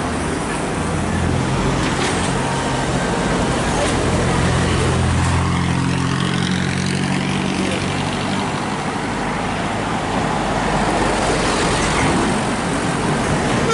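A heavy road vehicle passing with a low engine drone that swells to its loudest around the middle and then fades, over steady traffic and tyre noise.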